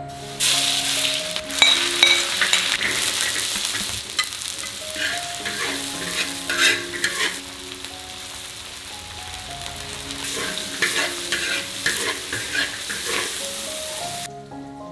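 Peanuts and diced vegetables sizzling in a hot wok as they are stir-fried, with a metal ladle scraping and tossing them against the wok. The sizzling starts suddenly as the food goes in just after the start and cuts off near the end.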